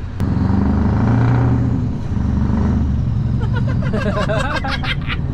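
Scania lorry's diesel engine running as the truck is driven slowly, heard from inside the cab; a steady low hum. A person's voice breaks in briefly about three and a half seconds in.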